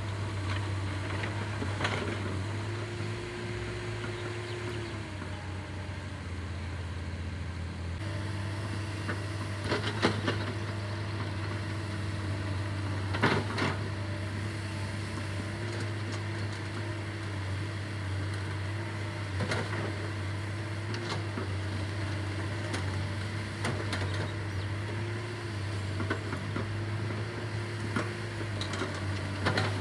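Earth-moving machine's diesel engine running steadily with a low drone, a higher tone coming and going over it, and a few sharp metallic knocks from the machine working, the loudest about ten and thirteen seconds in.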